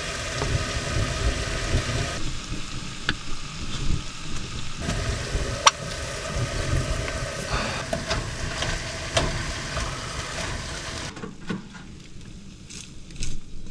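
Food sizzling in a hot pan, with occasional sharp clicks and knocks of utensils against the pan. Near the end the sizzle drops away to quieter handling sounds.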